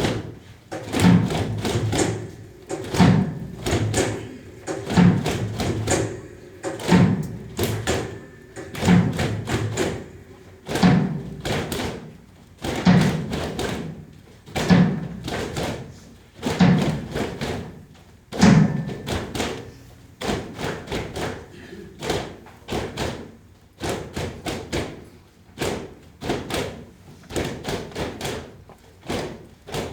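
Dull thumps at an even pace, about one every two seconds, giving way after roughly two-thirds of the way through to quicker, lighter taps and knocks.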